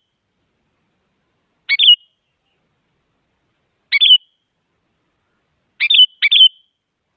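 Sooty-headed bulbul (kutilang) giving short, sharp calls about every two seconds, the last one a quick double call.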